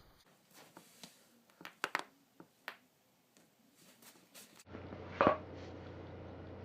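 Joints cracking: a series of short, sharp pops, the loudest pair about two seconds in. After a cut a steady low hum starts, and one louder crack comes about five seconds in.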